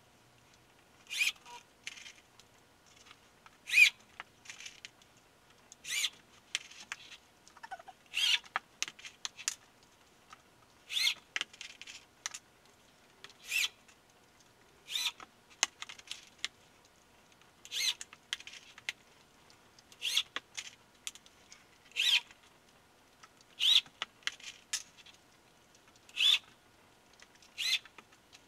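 Small metal screws clinking and rattling as they are handled and set down on a plywood sheet: a short rattle about every two to three seconds, with light ticks in between.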